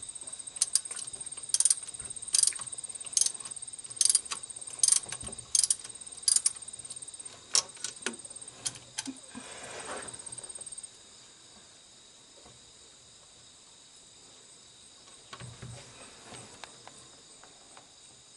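Socket wrench ratcheting, a short burst of clicks on each back-stroke about once a second, while a spark plug is turned out of the engine. It stops about eleven seconds in. A steady high insect trill sounds under it throughout.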